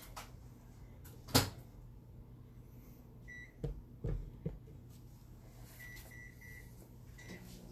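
Microwave oven being set and started: a door latch clicks shut, a few knocks follow, then keypad beeps go one, then three in quick succession, then one more as a five-minute time is entered. The oven starts running with a low steady hum near the end.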